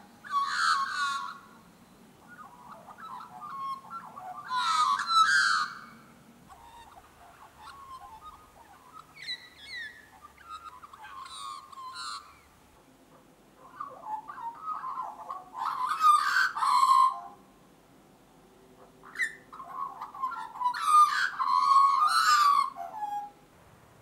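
Australian magpies calling in rich, warbling bouts of fluting notes. There are five bouts, each lasting one to three seconds, with short pauses between them.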